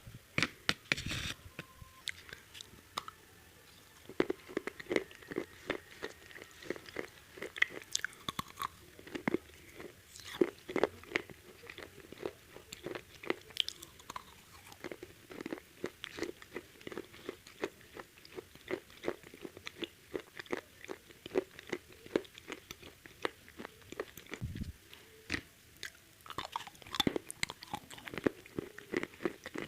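Close-up crunching and chewing of crispy KFC fried chicken: many sharp, irregular crackles as the coating is bitten and chewed, with a short lull a few seconds in.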